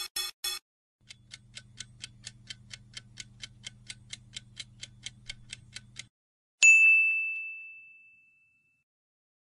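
Quiz-game sound effects: a few quick high chimes at the start as the answer options pop up, then a countdown timer ticking about four times a second for five seconds over a faint low hum. A single bright bell ding follows, ringing out for about two seconds as the correct answer is revealed.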